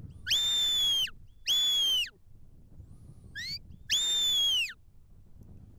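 Sheepdog handler's whistle commands to a working border collie: three long high whistles, each holding its note and dropping at the end, with a short rising whistle between the second and the third.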